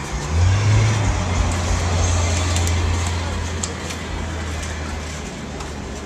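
A nearby motor vehicle's engine runs as a steady low hum that swells about half a second in and slowly fades, over a general haze of road traffic noise.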